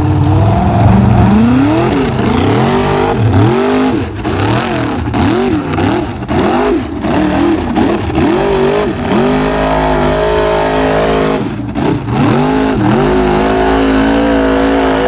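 Formula Offroad race truck's engine revving hard, the pitch swinging up and down about once a second as the throttle is worked. About ten seconds in it holds high and steady, drops out briefly, then revs up and down again before holding high once more.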